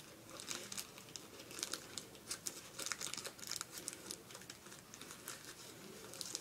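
Thin plastic bag crinkling faintly in small irregular crackles as it is handled.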